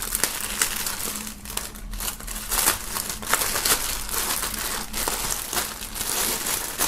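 Clear plastic wrapping film crinkling and crackling in irregular bursts as hands and a folding knife work at it to get it open.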